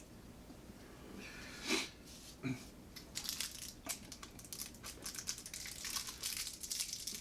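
Plastic MRE packaging crinkling and crackling as it is handled and opened, a dense run of small crackles starting about three seconds in.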